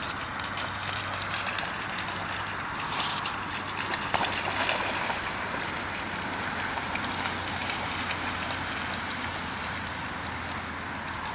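Water splashing and sloshing as a Staffordshire bull terrier runs and plays through floodwater, with a few louder splashes and a faint steady low hum underneath.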